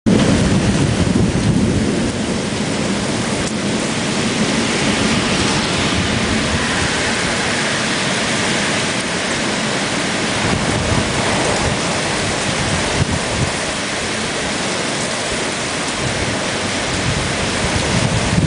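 Heavy rain pouring down in a thunderstorm, a steady loud hiss, under a gusty low rumbling that is strongest in the first couple of seconds and again near the end.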